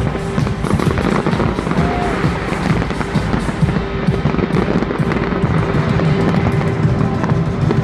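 Fireworks exploding in rapid, overlapping bangs and crackles, with music playing loudly over them.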